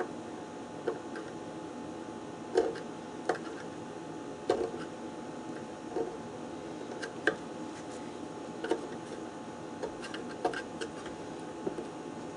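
Light hammer taps, about a dozen at uneven intervals, starting to spread and fold back the tabs of a split rivet that holds a toolbox handle.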